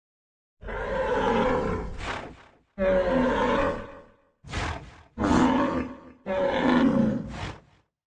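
A bull bellowing: five rough calls in a row, each a second or two long.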